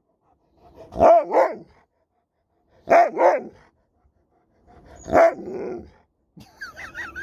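Alaskan Malamute 'talking': three short, separate woo-woo calls about two seconds apart, each rising and falling in pitch. A fainter, higher wavering sound follows near the end.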